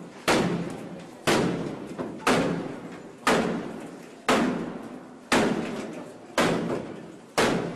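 A door being struck hard about once a second, eight heavy blows in a row, each followed by a fading echo, as police try to force it.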